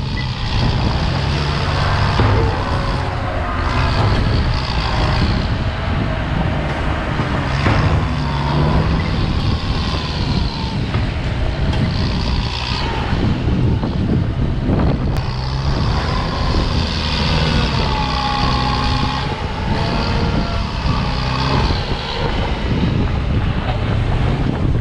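Farm tractor's four-cylinder diesel engine running hard under load while pushing soil, its low note shifting as the load changes.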